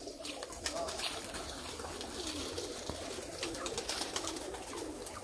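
A flock of free-range farm chickens clucking, a run of low, short, overlapping clucks.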